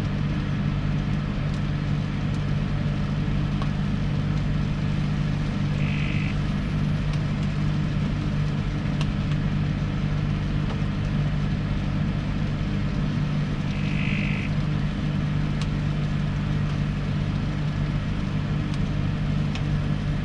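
Microwave oven running with a steady electrical hum, two short high tones sounding about six and fourteen seconds in.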